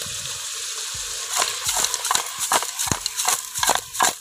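Chicken pieces cooking in an aluminium pot: a steady sizzle at first, then from about a second in a run of irregular knocks and scrapes as the pieces are stirred and tossed against the metal.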